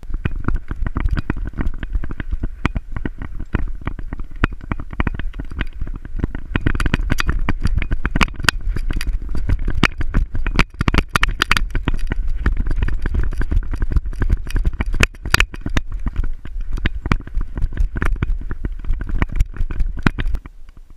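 Harness-mounted action camera on a running dog, knocking and rattling irregularly with every stride over heavy low wind buffeting on the microphone. It starts suddenly and drops away near the end.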